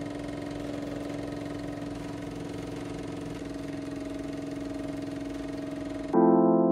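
Steady mechanical whirring hum with hiss and a fine even flutter, of the kind used for a running film projector. It cuts off suddenly about six seconds in, and electric piano music begins.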